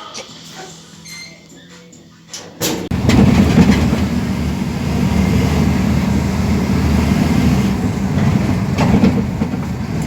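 A quiet stretch with a few clicks and a low hum, then a loud, steady low rumble of a moving vehicle that sets in suddenly under three seconds in.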